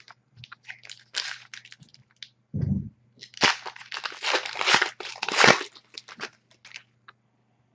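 A 2010-11 Panini Zenith hockey card pack wrapper being crinkled and torn open, in a run of crackly rustles loudest about halfway through. There is a dull thump about two and a half seconds in.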